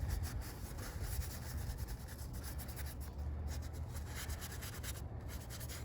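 Continuous soft rubbing and scratching from handwork on a wooden bandsaw box, made of many small scrapes, with a low hum underneath.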